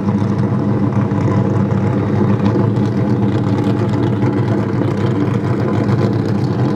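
Drift car's engine idling steadily and loudly, holding an even pitch with no revving.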